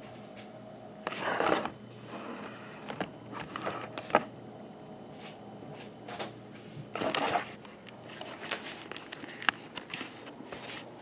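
Kitchen handling noises: scattered knocks and clicks, with two short, louder scraping noises about a second in and about seven seconds in, over a low steady room hum.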